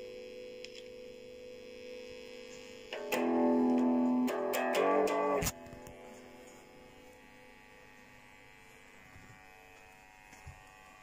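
Guitar: a chord rings out and fades, then about three seconds in a louder run of strummed chords that stops abruptly about two and a half seconds later, leaving only a faint steady hum.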